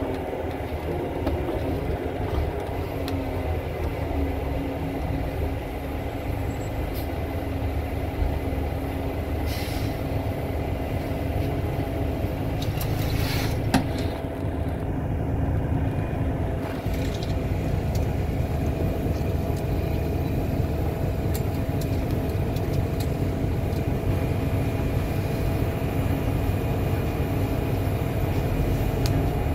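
Bus engine and running noise heard from inside the passenger saloon: a steady hum and rumble as the bus drives. A short hiss of air comes about halfway through.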